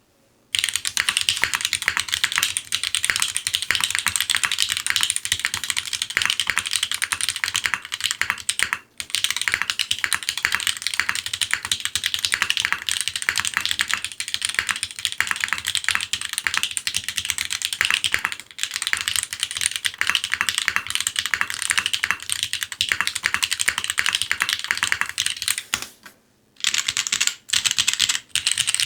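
Fast, continuous typing on a Baion Synovia custom mechanical keyboard: a dense stream of keystroke clicks, with short breaks about 9 seconds in and about 26 seconds in.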